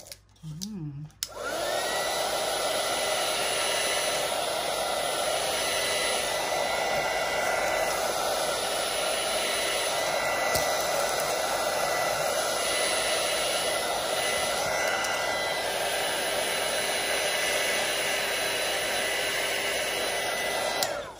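Craft embossing heat gun switched on about a second in, its fan spinning up to a steady blowing whir with a high motor whine. It runs evenly and is switched off near the end.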